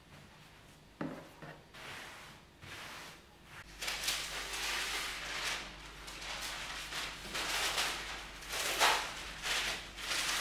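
Cotton cloth and baking paper rustling and crinkling as they are handled, unfolded and spread out on a wooden table. There is a light knock about a second in, and the rustling grows louder and busier from about four seconds on.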